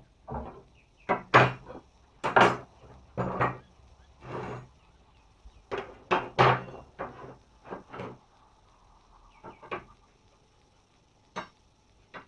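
Forged iron bars and a carpenter's square being moved about and set down on a wooden workbench. A run of sharp knocks and clunks fills the first eight seconds, followed by two or three more, spaced out.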